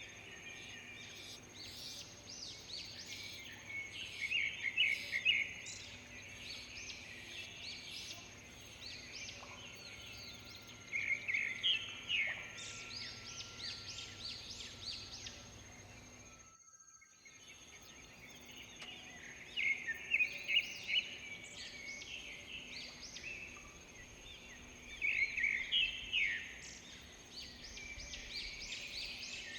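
Wild birds chirping and calling in repeated bursts of rapid notes, over a steady high-pitched insect buzz. The sound cuts out completely for about half a second midway.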